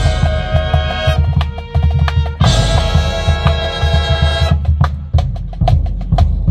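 Marching band playing: loud held brass chords over a driving drumline with bass drums and snares. About two-thirds of the way in, the horns cut off and the drumline plays on alone.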